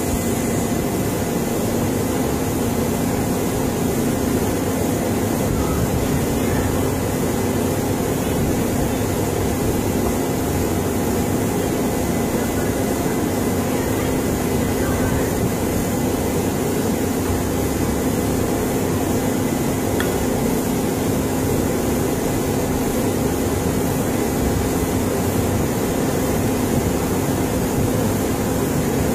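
Wheel loader's diesel engine running steadily with a constant low hum.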